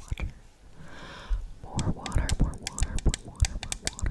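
Close-miked ASMR sounds: a run of quick, sharp clicks and taps with soft whispered breaths.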